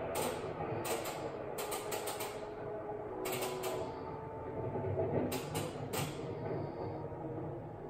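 Bursts of rapid loud clicking from a surge protector, in irregular clusters timed with the flashes of a lightning simulator. The owner takes the clicking for a sign that the surge protector is about to fail.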